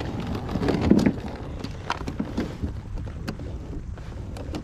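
Fishing tackle being handled: a Plano 3600 StowAway plastic tackle box and a soft tackle bag rustling and knocking, with a louder muffled rustle about a second in and scattered small clicks after.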